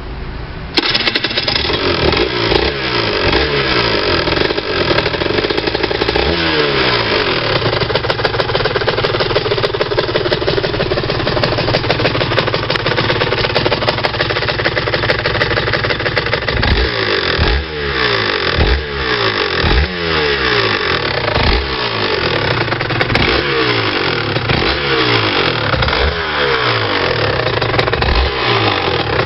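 Aprilia RS 125's Rotax 122 two-stroke single-cylinder engine running and being blipped again and again, the revs rising and falling back each time. It carries the clinking rattle the owner is chasing, a noise that he says is absent when riding slowly at about 30 km/h in 4th–5th gear.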